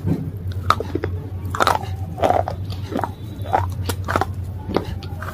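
A person biting and chewing brittle slate pieces: a string of sharp crunches and cracks at an uneven pace, over a steady low hum.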